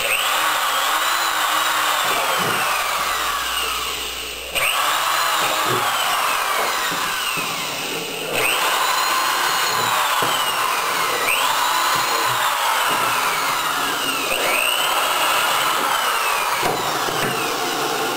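Corded electric drill drilling a row of holes through plywood hull panels, about five runs in a row. Each whine climbs quickly in pitch as the drill spins up, then slowly falls as the bit works through the wood.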